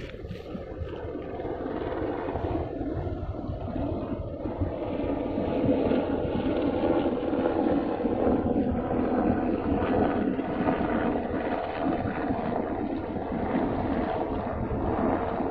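Steady low drone of the MOL Creation container ship's machinery carrying across the water, swelling over the first several seconds, with wind rumbling on the microphone.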